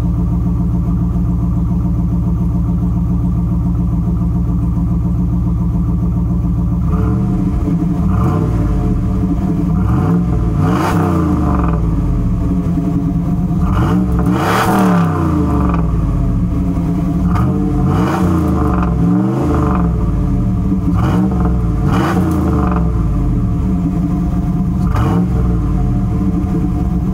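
1995 Pontiac Trans Am's 5.7-litre LT1 V8 exhaust idling steadily, then revved repeatedly from about seven seconds in. The revs are short blips that rise and fall in pitch, with the highest rev near the middle.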